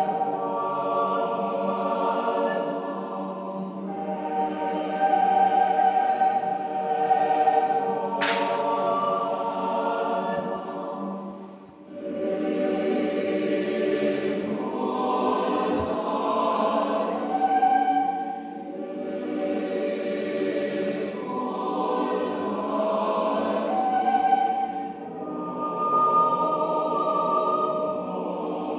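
Choir singing slow, long-held chords in swelling phrases, dipping briefly about twelve seconds in. A sharp click sounds about eight seconds in.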